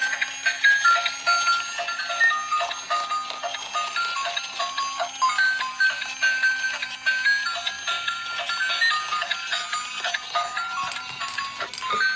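A tinkly melody of quick high electronic notes with a low steady tone beneath and light ticking percussion.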